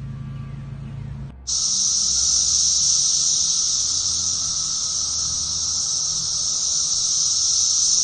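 Background music for about a second and a half, then an abrupt cut to a loud, steady, high-pitched chorus of Brood X periodical cicadas singing from the trees.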